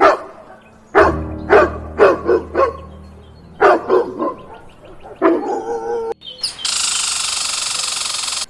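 A dog barking in three quick bunches of short barks. About six and a half seconds in, a steady high-pitched buzz takes over, like a flying insect.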